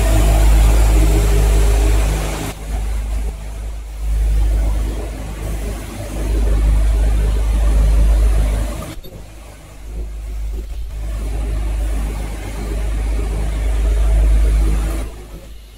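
Automatic breathing-filter production machine running: a steady mechanical hum under a deep rumble that swells and fades every few seconds.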